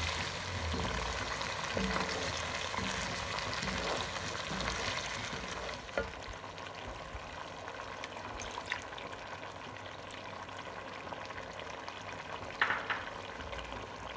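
Chicken and peas frying in a pot, sizzling steadily while a wooden spoon stirs them. The sizzle settles lower about halfway through as a little water goes in, and a couple of sharp knocks come near the end.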